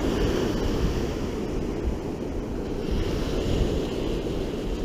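Ocean surf washing onto the beach, with wind rumbling on the microphone.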